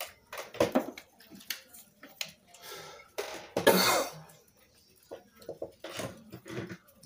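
Light clicks and taps of clear acrylic stamps and cardstock being handled on a cutting mat, with a louder short burst of rough noise a little past halfway through.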